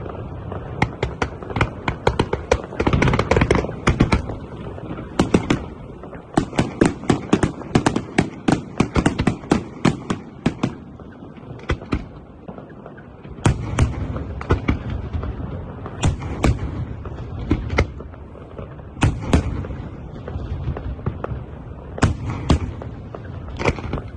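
Aerial fireworks display: rapid runs of sharp bangs and crackling shell bursts, thickest in the first half, then fewer, separate loud booms over steady crackle.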